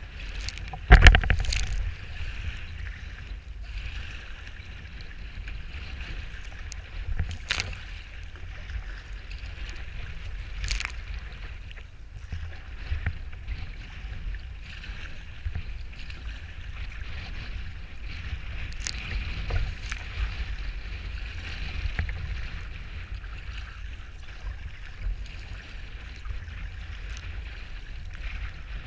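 Wind rumbling on the microphone over water sloshing and splashing around a sea kayak riding choppy waves. There is a loud splash about a second in, and a few sharper slaps of water later.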